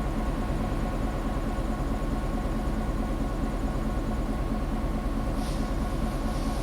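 EMD GP9 diesel-electric locomotive running steadily, its 16-cylinder two-stroke 567 engine giving a low, even drone. Some faint high-pitched sounds come in near the end.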